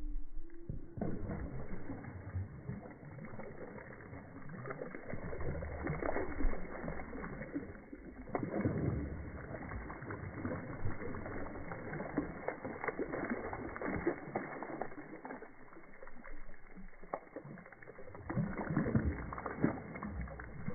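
A hand sweeping through a pool of water again and again, throwing up spray, with splashes falling back onto the surface. The splashing is heaviest about eight seconds in and again near the end.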